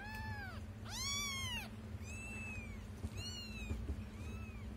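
Young kitten mews: about five high, arching meows, roughly one a second, the second one the loudest.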